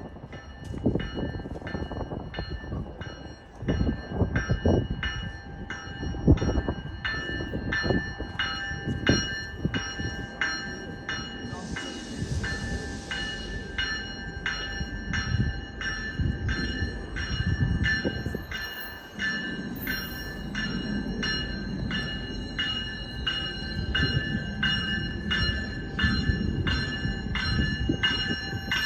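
A GO Transit commuter train, led by cab car 257, pulling into the station with its bell ringing in a steady rhythm over the rumble of the cars. A short hiss of air comes about twelve seconds in.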